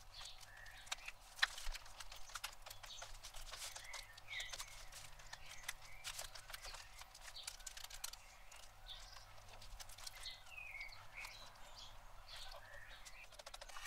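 Hands working a piece in beaten egg and flour on a metal baking tray: faint, irregular wet squelches, pats and clicks as the egg-soaked coating is pressed on.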